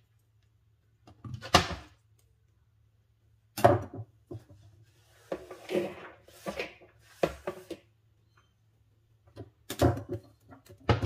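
Irregular knocks, clatters and scrapes as a plastic cutting board and kitchen knife are picked up, moved and set down on a kitchen counter, over a faint steady low hum.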